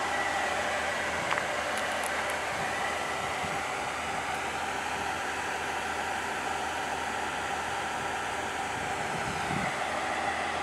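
KiHa 40 diesel railcars standing at the platform with their diesel engines idling: a steady hum with a whirring, fan-like noise.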